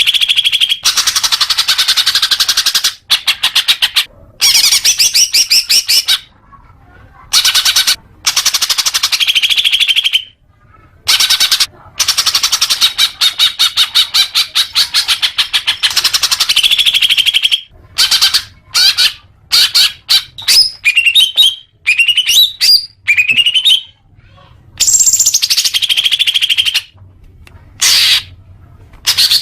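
Greater green leafbird (cucak hijau) singing: loud phrases of very fast, rattling trills and chattering notes, each lasting a few seconds with short pauses between. About two-thirds of the way through, a run of quick rising whistled notes.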